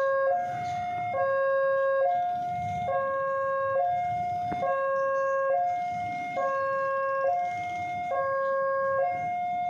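Railway level-crossing warning alarm sounding while the barrier is down for an approaching train: an electronic two-tone signal alternating steadily between a lower and a higher tone, each held just under a second.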